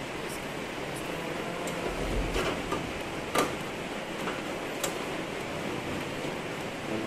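A few scattered metallic clicks and taps from a screwdriver and hands working on a steel computer case's drive bay, the sharpest about three and a half seconds in, over a steady background hum.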